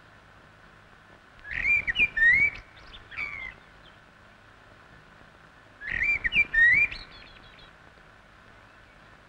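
A bird calling twice: two short phrases of quick rising and falling notes, about four seconds apart.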